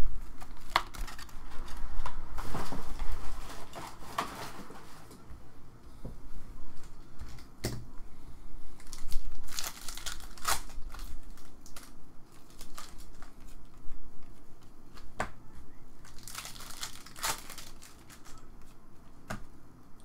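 Foil trading-card pack wrappers crinkling and tearing open in the hands, in several bursts of rustling, with small clicks and taps as the cards inside are handled.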